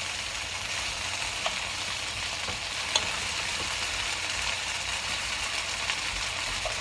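Breaded chicken frying in oil in a pan, a steady sizzle, with two light clicks about one and a half and three seconds in.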